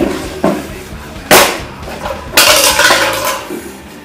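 An empty aluminium soft-drink can being crushed and crumpled by hand: a sharp crunch a little over a second in, then about a second of crackling crumpling.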